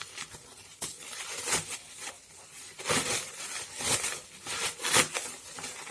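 Parcel packaging crinkling, rustling and tearing in irregular bursts as it is unwrapped by hand.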